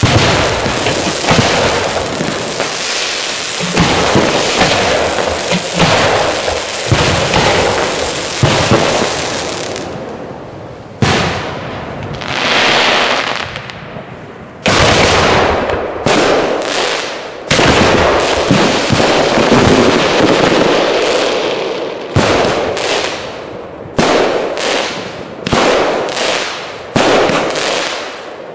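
Professional display fireworks: dense crackling and bangs at first, then a hiss that swells and fades midway. After that come loud shell bursts, each dying away, about one a second near the end.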